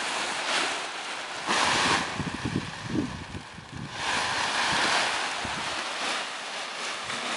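Strong wind buffeting the microphone in gusts, with two loud surges, about a second and a half in and again from about four seconds, and low thudding between them.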